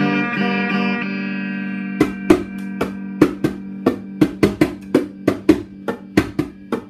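Electric guitar playing without vocals. A chord rings for about two seconds, then a run of sharp percussive hits, roughly three a second and irregular, is played over a steady low drone.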